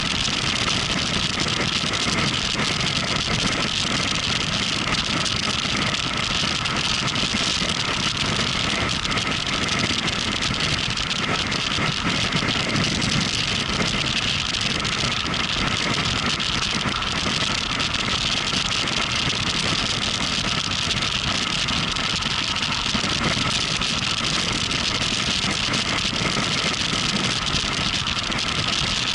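Motorcycle on the move: engine running under a steady rush of wind and road noise, with no clear revving or gear changes.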